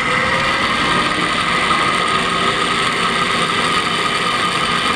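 Viceroy TDS6 bowl-turning lathe running at its top speed setting, just short of 1,500 RPM, its three-phase motor driven by a single-phase inverter: a steady whine, with a lower tone creeping up slightly in the first second as it settles at full speed.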